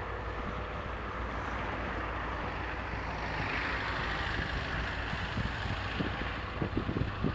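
A General Motors GT22CW diesel locomotive hauling a freight train at very low speed, its engine a steady low hum under a wash of running noise. A few short low thumps come near the end.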